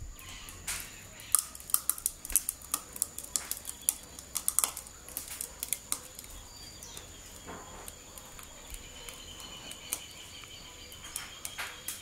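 Scattered light clicks and taps of metal kitchenware while pudding batter is poured from a bowl through a small wire-mesh sieve into an aluminium pudding mould, the clicks thickest in the first half.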